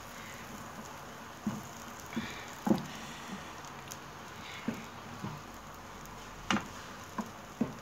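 Beaten egg frying in a non-stick pan: a soft, steady sizzle, with a few light knocks and clicks scattered through it.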